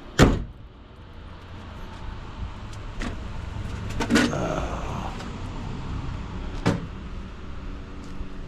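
Four sharp knocks and clatters of objects being picked up and set down, the first the loudest, with a brief rustle after the third, over a steady low hum.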